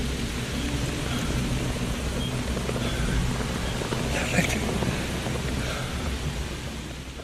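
Steady rushing noise with a low hum underneath, a brief sharper sound a little past four seconds in, fading away near the end.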